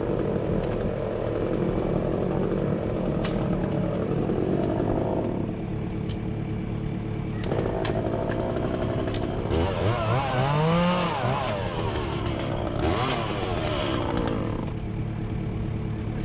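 Echo CS-400 two-stroke chainsaw running, then revved up to full throttle twice, about ten and thirteen seconds in, with the pitch climbing and dropping back each time as it cuts.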